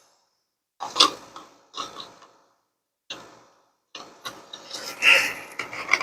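Short bursts of clicking and clattering from small parts being handled and worked on at a bench. The bursts are separated by stretches of dead silence, and the longest comes in the second half.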